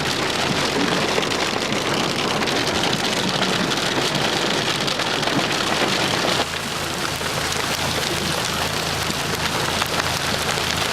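Hail pelting a car's roof and body: a dense, steady rattle of countless small impacts. About six seconds in the rattle eases slightly and a steady low hum comes through underneath.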